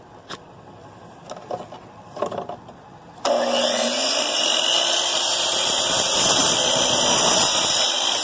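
A few light knocks, then an electric power tool switches on about three seconds in, spins up and runs steadily and loudly.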